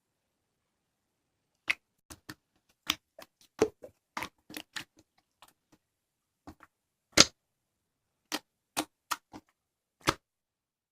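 Slime being pressed and stretched by hand, giving irregular sharp clicks and pops, about twenty in eight seconds, one louder pop about two-thirds through.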